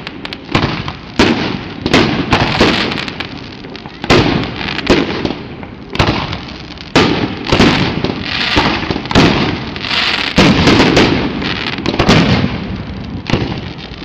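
Aerial fireworks bursting in quick succession: about a dozen loud bangs, roughly one a second, each trailing off over a fraction of a second to a second.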